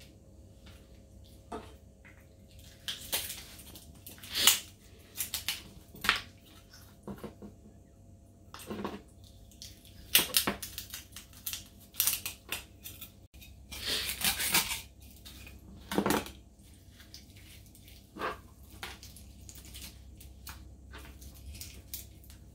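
Kitchen knife scraping scales off a whole tilapia and knocking on a plastic cutting board: irregular scrapes and sharp clicks, with a longer scraping stretch past the middle.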